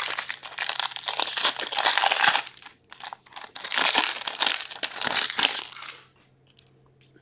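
Shiny wrapper of a hockey card pack being torn open and crinkled by hand, in two spells of crackling, stopping about six seconds in.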